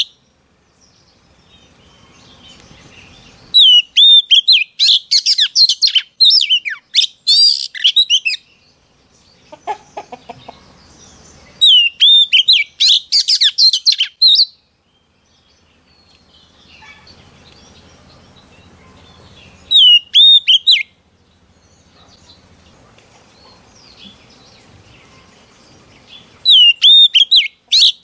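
Oriental magpie-robin, a female, singing in loud bouts of a few seconds with pauses between. Each bout repeats clear hooked whistles and runs into fast, high trills. There are four bouts: a long one early, a shorter one near the middle, a brief one, and one starting near the end.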